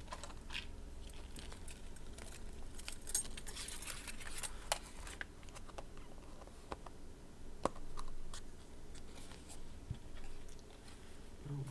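Light, scattered clicks and clinks of small metal jewelry pieces being handled, as earring backs are picked out and fitted to a pair of earrings.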